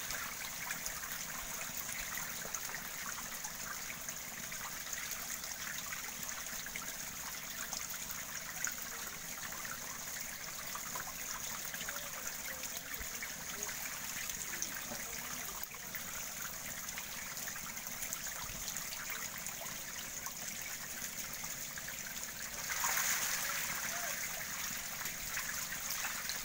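Steady splashing and trickling of shallow water churned by a dense mass of thrashing native magur (walking catfish) in a drained biofloc tank, growing louder near the end.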